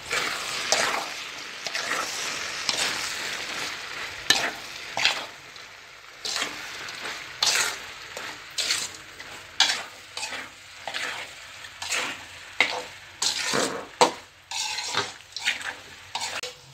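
Pasta frying in a metal pot, stirred with a spoon: a steady sizzle, loudest in the first few seconds, with the spoon scraping and knocking against the pot about once a second.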